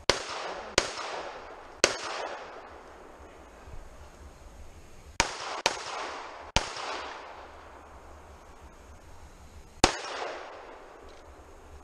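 Seven pistol shots fired during an IDPA stage: three fairly quick shots, a pause of about three seconds, three more, then a single last shot near the end, each trailing off in an echo.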